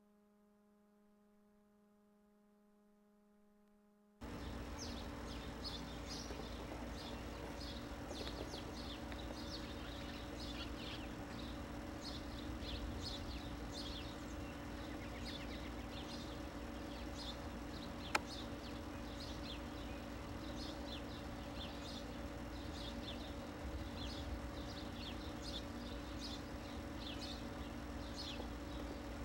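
Near silence for about four seconds, then outdoor ambience: small birds chirping over and over above a steady hum and hiss, with a single sharp click about eighteen seconds in.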